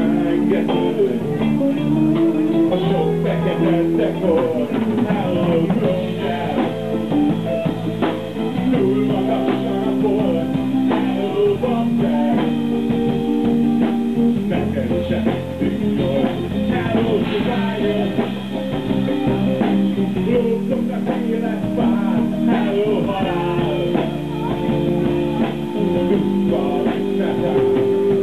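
Live rock band playing, with guitar to the fore, recorded from the audience.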